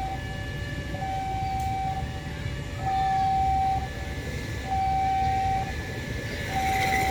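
Railway level-crossing warning signal sounding: a steady electronic tone, about a second long, repeating evenly about every second and three-quarters, four times, over a constant low rumble.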